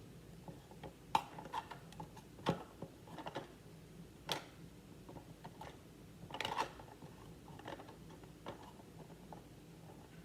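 Irregular light clicks and knocks of kit parts being handled and fitted together during assembly of a build-it-yourself vending machine, with a small cluster of rattling taps a little past the middle.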